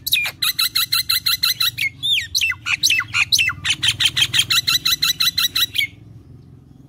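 Common myna calling: fast runs of harsh repeated notes, about eight a second, broken by a few swooping notes around two seconds in. It stops about a second before the end.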